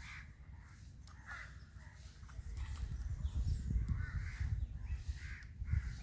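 Bird calls repeating about once a second, with a low rumble that grows louder about halfway through.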